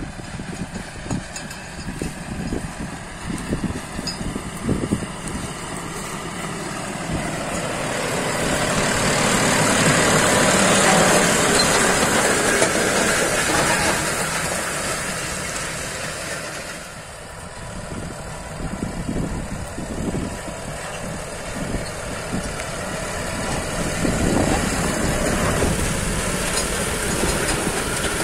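John Deere 5405 tractor's CRDi diesel engine running under load as it pulls a 16-disc harrow, with the rushing, scraping noise of the discs cutting dry soil. The noise grows loudest about ten seconds in as the harrow passes close.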